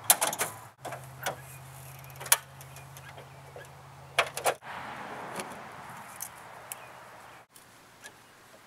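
A few sharp metal clicks and clunks as a Jeep's hood is unlatched and raised, the loudest about two and four seconds in, then the rustle and rattle of jumper cables being handled.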